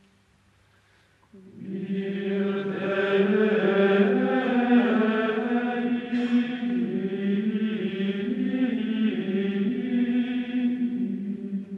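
A choir chanting, several voices singing together on long held notes, starting about a second and a half in after near silence.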